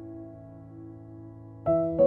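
Background piano music: a held chord fades away, then new notes are struck sharply near the end.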